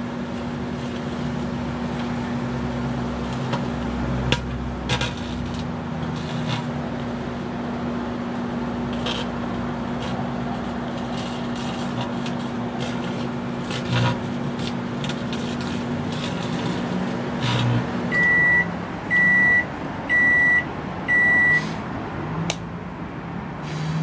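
Microwave oven running with a steady hum while laptop circuit boards and a CPU burn and arc inside, giving scattered sharp crackles and pops. About 18 seconds in the hum stops and the oven beeps four times, about a second apart, as the cycle ends.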